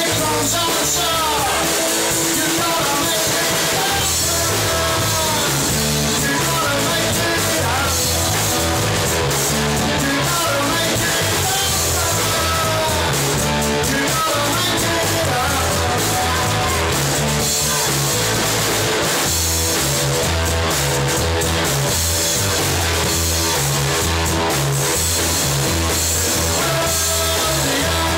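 Rock music with drums, guitar, bass and singing, loud and compressed.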